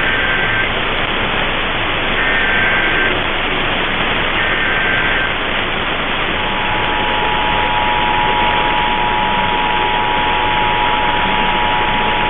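Emergency Alert System tones heard through static over AM radio. Three short warbling data bursts of the SAME header come about two seconds apart, then about six seconds in the steady two-tone EAS attention signal (853 and 960 Hz) starts and holds. Together they open a station's relay of the statewide test.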